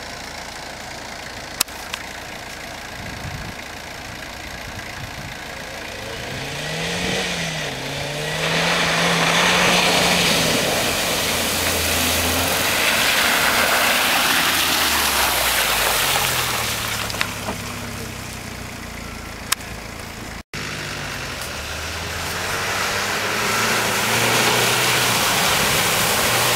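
Off-road Jeep engine revving up and down with repeated changes in pitch as it drives over rough ground. Two long stretches of loud rushing noise build over it. The sound drops out for an instant about two-thirds of the way through.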